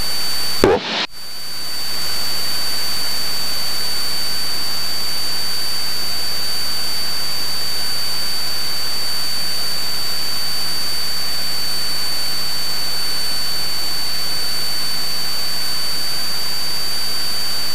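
Cessna 172 in flight heard through the headset intercom: a steady rush of engine and wind noise with a constant high-pitched whine, briefly broken about a second in.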